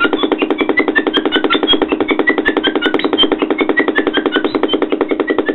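Homemade MFOS Noise Toaster analog synthesizer played through a small guitar amp, with its knobs being turned. It makes a rapid, even pulsing drone with a steady low tone and small chirps wandering up and down above it.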